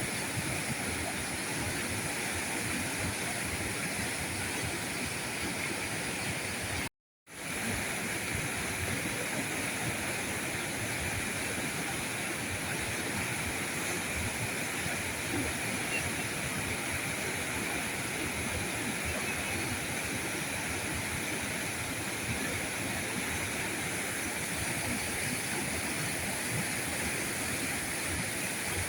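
River current rushing and flowing steadily over stones. The sound cuts out for a split second about seven seconds in, then resumes.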